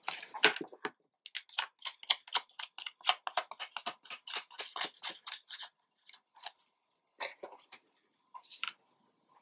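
Paper and card handled under the fingers on a cutting mat: a quick run of crackly rustles and clicks, dense at first, then thinning out and stopping shortly before the end.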